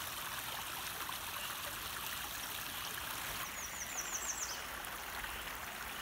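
Shallow, rocky woodland creek running steadily over stones, a continuous babble of water. About three and a half seconds in, a quick run of about six high chirps sounds over it.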